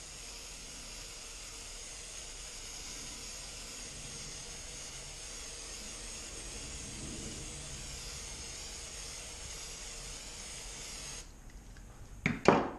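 Aerosol can of 3M high-strength spray contact adhesive spraying in a steady hiss, which cuts off about eleven seconds in. A couple of short loud coughs follow near the end.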